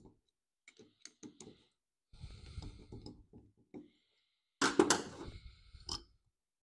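A metal small-engine carburetor being handled and taken apart on a paper-towel-covered bench: a few light clicks, a stretch of rustling and scraping, then a louder sharp knock of metal parts about five seconds in, and one last click.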